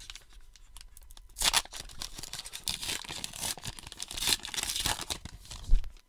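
A Topps Archives baseball card pack's wrapper being torn open and crinkled, in a run of rough ripping bursts, with one short knock just before the end.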